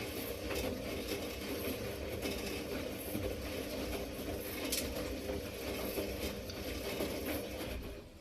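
Beko washing machine running mid-cycle, its motor humming steadily and the drum turning with occasional light clicks; the running stops shortly before the end.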